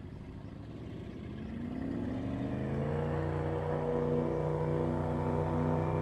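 A boat's motor speeds up, its pitch rising over about two seconds before holding steady, and it grows louder as it comes closer.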